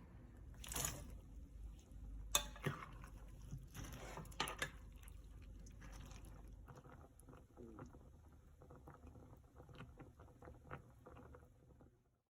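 Cooking sounds from a pot and utensils. A few sharp knocks and scrapes come in the first five seconds, followed by a run of soft, irregular ticks.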